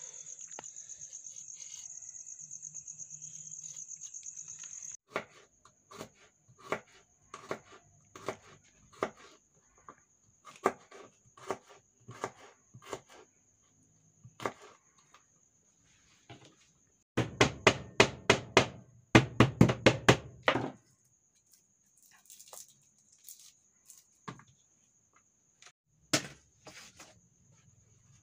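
Kitchen knife cutting shallots and garlic on a cutting board: single cuts at irregular intervals, then a fast run of chopping strikes for about three seconds past the middle, the loudest part. Insects chirr steadily throughout, loudest and pulsing over the first five seconds.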